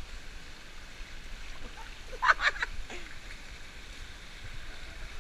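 Steady splashing rush of water falling from a pool's mushroom fountain onto the pool surface, with one brief louder burst of sound about two seconds in.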